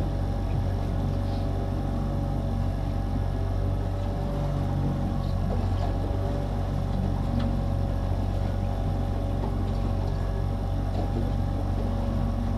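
Boat outboard motor running steadily at low trolling speed: an even, unchanging low hum.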